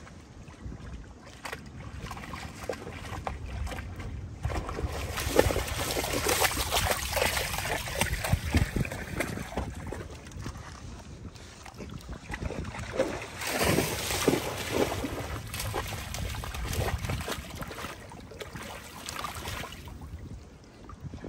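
Water sloshing and splashing in irregular bursts, busiest in the middle and dying down near the end.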